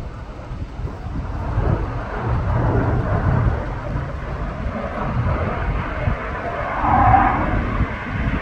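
Saab JAS 39 Gripen fighter jet's engine rumbling in flight, growing louder and loudest about seven seconds in.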